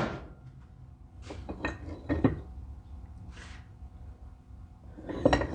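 Loose metal tractor parts clinking and knocking as they are handled and set down, with a few sharp knocks between about one and two seconds in, a short scrape, and another cluster of knocks near the end.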